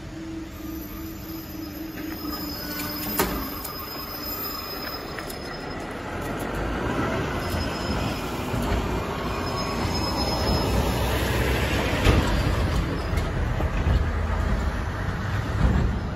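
Level crossing warning alarm sounding as a steady pulsing tone, cutting off with a click about three seconds in as the barrier finishes rising. Then a low rumbling noise builds, a heavy lorry driving over the crossing.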